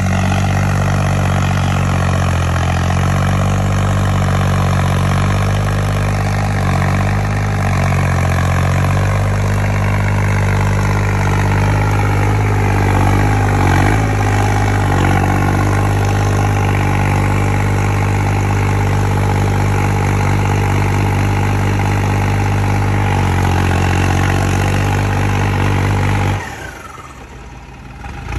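New Holland 3630 tractor's diesel engine, with a modified fuel injection pump, running steadily as the tractor drives over a dirt track. The sound drops away abruptly near the end and returns about two seconds later.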